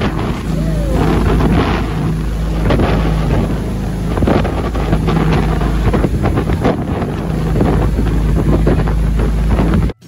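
Jet boat engine running steadily under way, with wind buffeting the microphone in gusts and water rushing past the hull. The sound cuts off suddenly just before the end.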